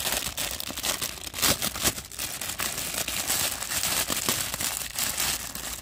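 Thin clear plastic bag crinkling and rustling in irregular crackles as hands work a plastic toy train out of it.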